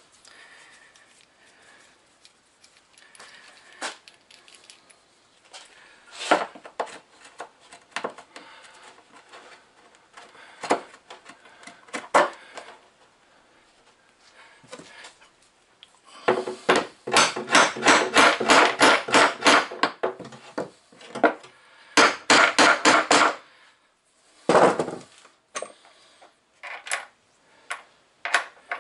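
Hand-tool work on a vise mounting bolt through a wooden workbench: scattered clicks and knocks, then a fast run of sharp taps lasting about four seconds from around the middle, a shorter run a couple of seconds later, and one heavier knock after it.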